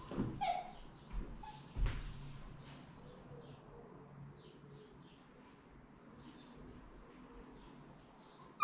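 Young puppy held on its back giving a few short, high-pitched squeaks, with scuffling clicks against a tiled floor in the first two seconds or so, then mostly quiet.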